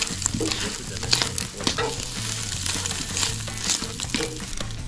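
Scrambled eggs sizzling in a frying pan on a propane camp stove, with repeated scrapes of a utensil stirring them against the pan.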